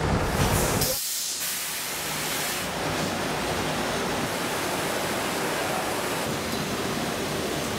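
Large floor fan blowing: a low rumble of moving air for the first second, then a steady rushing hiss, with a brighter, sharper hiss from about one to nearly three seconds in.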